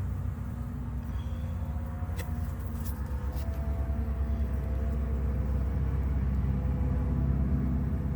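Many honeybees buzzing in the air close to the hive during an orientation flight, a dense low hum that grows a little louder partway through. A few sharp clicks sound about two to three seconds in.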